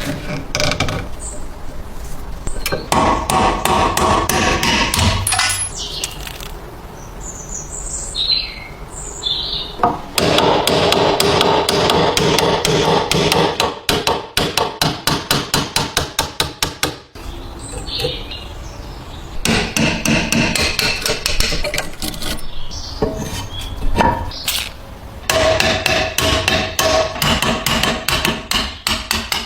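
A hammer striking metal parts of a stapler during restoration, in long runs of quick, evenly spaced blows, several a second, with a ringing note, and a quieter pause about a third of the way through.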